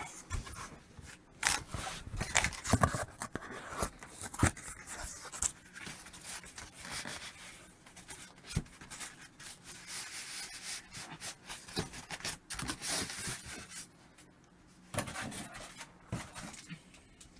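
Cardboard shipping box and polystyrene foam packing of a flat-screen TV being handled: irregular rubbing, scraping and rustling with scattered short knocks and clicks.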